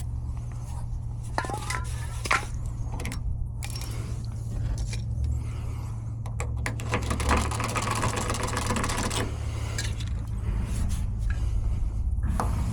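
Light metallic clicking and scraping from a locksmith's hand tools working at a car door lock, with a steady low hum underneath.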